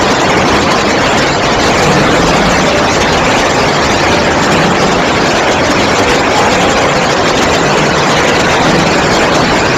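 Loud, steady rush of floodwater, an even roar with no rise or fall.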